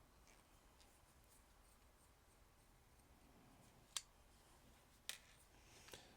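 Near silence broken by three small sharp clicks, about four, five and six seconds in, from a vintage plastic action figure being handled.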